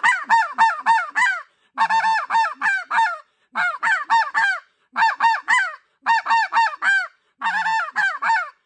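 NoCo White Out snow goose call blown in fast runs of short, sharp barks, four to six notes to a run with brief pauses between. The notes are tongued quickly ("da-ta") so the call sounds like several snow geese rather than one.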